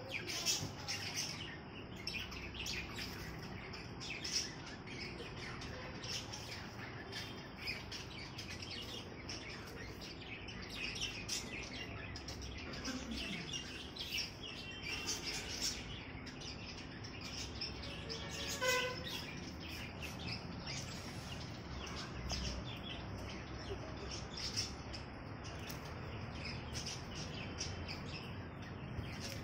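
Small birds chirping and tweeting over and over in short, high chirps, with a brief run of falling notes about two-thirds of the way through.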